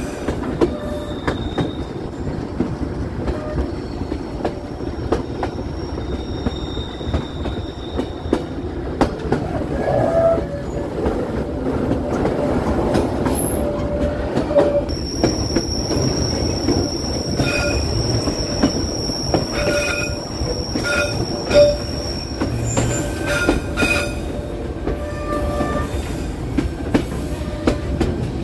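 Passenger train rolling through tight mountain curves, its wheel flanges squealing against the rail in thin high tones over a steady low rumble and scattered clicks from the rail joints. One squeal holds steady for several seconds from about halfway.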